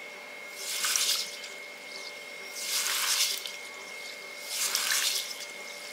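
A hand swishing and rubbing soaked finger millet grains in a glass bowl of water, washing them: three watery swirls about two seconds apart.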